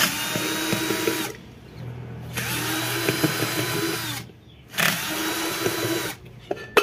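Cordless drill-driver running in three short bursts as it backs out the screws holding a ceiling fan's motor housing. Each burst's whine rises as the motor spins up and falls as it stops.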